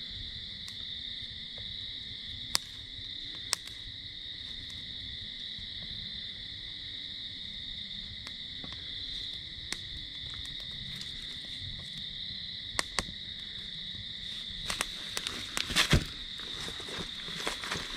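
Night insect chorus, a steady shrill drone at two pitches throughout. A few sharp snaps, then a burst of crackling near the end as the pine-needle and twig kindling catches fire.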